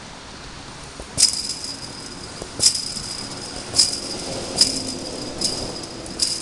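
Soccer ball kicked repeatedly against a chain-link fence: six sharp metallic rattles of the fence mesh, about one a second, each with a brief jingling ring.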